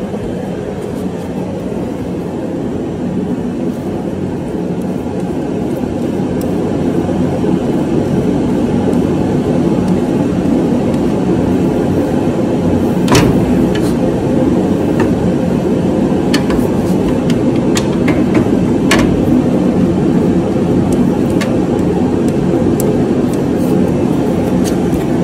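A steady low drone of shop background noise, with a few sharp metal clicks and clinks, the loudest about halfway through, as a chrome steering rod is fitted to the front axle linkage.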